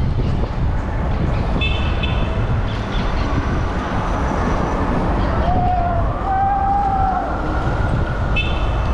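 Steady wind and road rumble on the camera microphone while riding an electric bike through city traffic. Short high electronic beeps sound about two seconds in and again near the end, and two brief arching tones come just past the middle.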